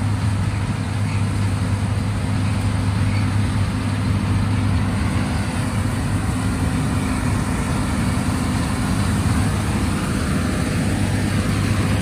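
John Deere S-Series combine harvester working through wheat while unloading grain on the move into a trailer, with the tractor pulling the trailer running alongside. Together they make a steady machine drone with a deep, unchanging hum.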